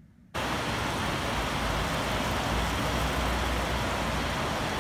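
Rain and city street traffic: a steady wash of noise that starts abruptly about a third of a second in, with a low rumble of passing vehicles beneath it.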